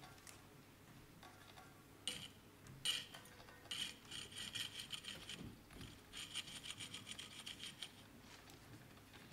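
Rapid rasping, scraping strokes in several bursts, starting about two seconds in, with the longest runs lasting a second or two.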